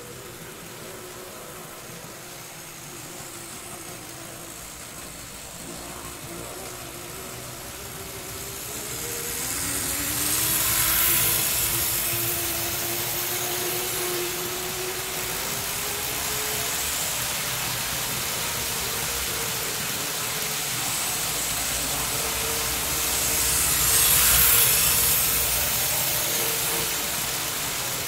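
Freshly serviced Lima N gauge Class 55 Deltic model locomotive running and pulling a long train of coaches: a small motor's whine that wavers in pitch over a steady rolling rattle. The sound swells twice, about a third of the way in and again near the end.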